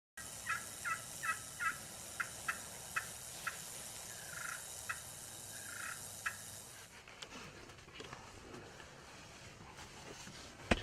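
Turkey calling: a run of short, sharp notes, two or three a second, with a couple of softer, drawn-out notes among them, fading out about six seconds in.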